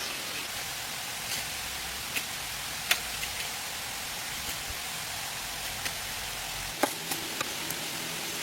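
A steady rushing hiss with short, sharp clicks and taps scattered through it. The loudest tap comes about three seconds in, and another comes near seven seconds.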